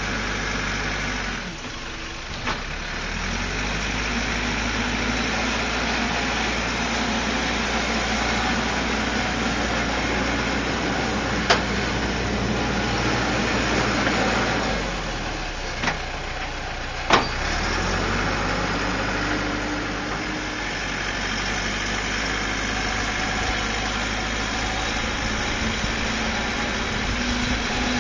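Caterpillar 416C backhoe's Perkins turbo diesel running steadily. Its note dips twice, and a few sharp knocks sound over it.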